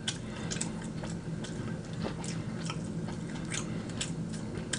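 Close-miked eating sounds of a person chewing rotisserie chicken: irregular wet clicks and lip-smacks, several a second, over a low steady hum.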